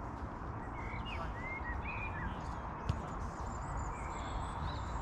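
Steady open-air background hiss with a few short bird chirps about a second in, and a single sharp thud of a football being kicked near the middle.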